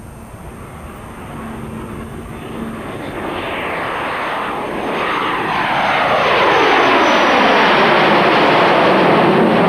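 Jet flypast of an English Electric Canberra and its two Rolls-Royce Avon turbojets. The engine noise grows steadily louder, and from about halfway in the whine sweeps downward in pitch as the aircraft passes overhead.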